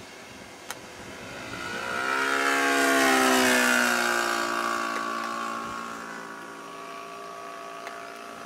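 Cessna's propeller engine flying low past, swelling to a peak about three seconds in and then fading, its pitch dropping as it goes by.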